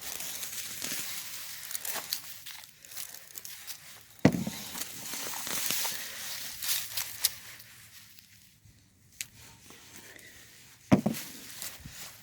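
Hands digging through soil in a potting bucket, a crackly rustling and scraping, broken by two sharp knocks, one about four seconds in and one near the end.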